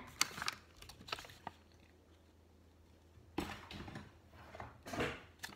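A few light taps in the first second and a half, then after a short quiet, paper rustling in two short bouts as a printed instruction sheet is handled.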